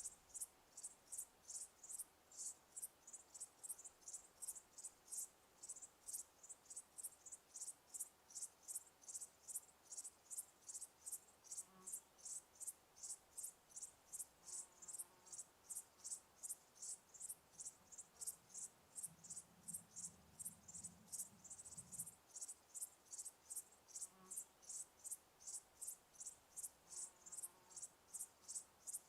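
A cricket chirping steadily at a high pitch, about two chirps a second. A faint low hum comes in for a couple of seconds about two-thirds of the way through.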